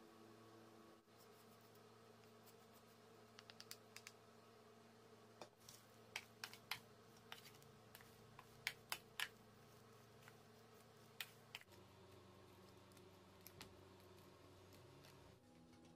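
Faint, irregular clicks and ticks of hands tossing half-dried flatfish strips coated in barley malt powder in a stainless steel tray, over a faint steady hum.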